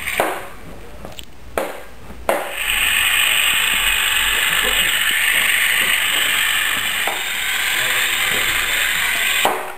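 Small gear motors of a Cebekit C-9803 robot kit whirring steadily as it drives. They start just after a few sharp clicks about two seconds in and cut off near the end.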